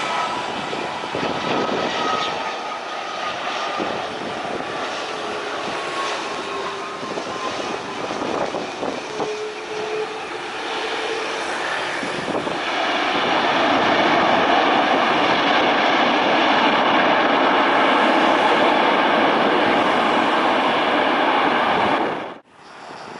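Jet engines of an Airbus A330 widebody airliner landing, a whine falling slowly in pitch as it passes on short final. About 13 s in, after touchdown, the engine noise grows clearly louder and holds steady with a high whine on top, then cuts off suddenly near the end.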